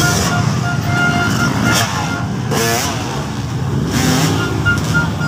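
Dirt bike engines running and revving, with a rapid string of short beeps near the start and again near the end.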